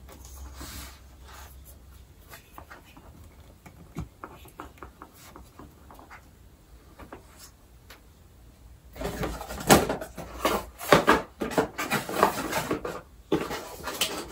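Hands handling a GoPro on its stick and plastic accessories: scattered faint clicks at first, then from about nine seconds in a run of louder clattering and rustling.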